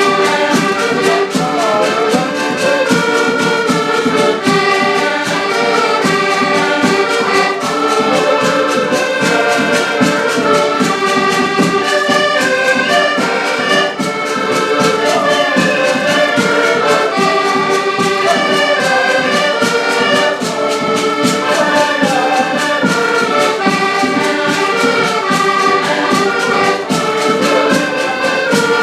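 Live ensemble music led by brass instruments such as trumpets and trombones, many instruments playing a melody together over a steady percussive beat.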